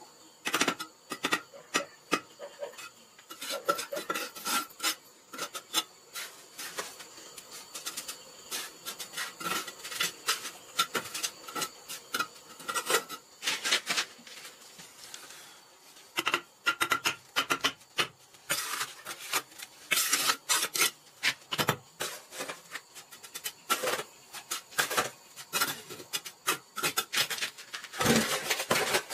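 Red clay bricks being set by hand in mortar, scraped and rubbed against mortar and concrete in irregular runs of scraping strokes with short pauses between them.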